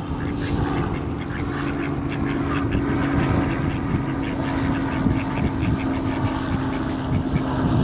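Mallard ducks quacking as they feed, over a steady low engine hum.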